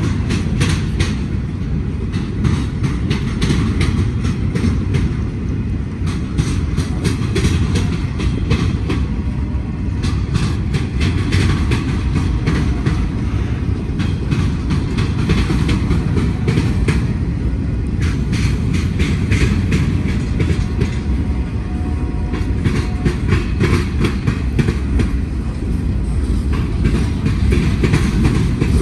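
Freight train of boxcars and tank cars rolling past at close range, its wheels clacking rapidly and continuously over the track joints above a steady low rumble.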